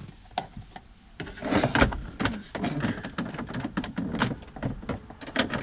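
Glove box door of an Oldsmobile Cutlass 442 being shut and latched by its newly installed lock, then the key worked in the lock: a heavy knock about a second and a half in, followed by a run of sharp clicks and key clinks. The latch is catching.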